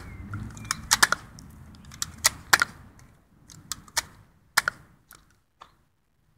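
A string of sharp, irregular plastic clicks, like a plastic toy gun being handled and its trigger worked, with the sound cutting off suddenly near the end.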